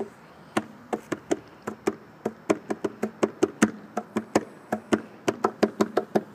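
Rapid, irregular knocking or tapping on a hard, hollow-sounding surface, starting about half a second in and going at roughly four to five taps a second.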